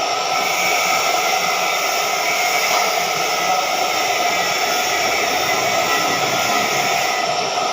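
TIG welding arc on a flange, a steady hissing buzz with faint constant tones through it. The highest part of the hiss drops away shortly before the end.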